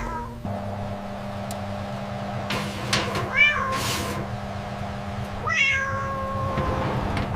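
A cat meowing twice, about three seconds and five and a half seconds in, each call rising then falling, over a steady low tone.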